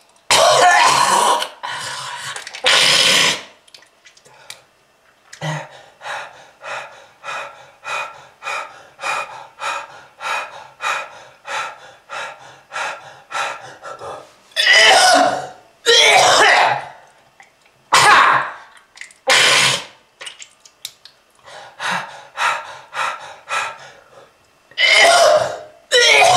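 A person's smoker's cough: repeated hard hacking coughs and throat clearing. Loud coughs open the stretch, then a long run of short, even coughs about two or three a second, then more loud hacking fits.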